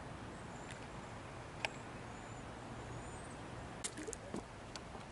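Steady rush of a stream's cold running water, with a sharp click about one and a half seconds in and a few more clicks near the end.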